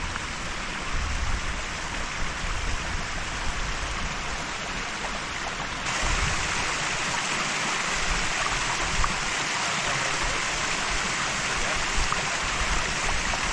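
Waterfall and stream water rushing in a steady hiss, with some low wind rumble on the microphone. About six seconds in the sound steps up, brighter and a little louder.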